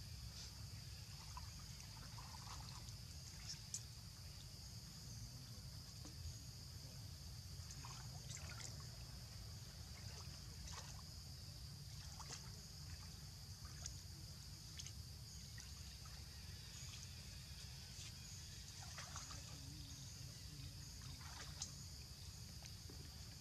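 Faint ambience: a steady low rumble and a steady high drone, with scattered small splashes and trickles of water as macaques paddle at the edge of a duckweed-covered pool.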